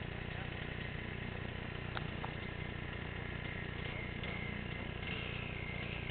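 Distant dirt bike engine running steadily at low revs, with no revving.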